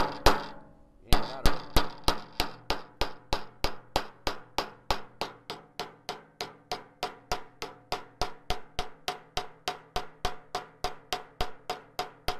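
Hammer striking a sheet-metal seam around a rim, closing the seam. The blows come in a steady rhythm of about three to four a second, each with a short metallic ring, after a brief pause about a second in.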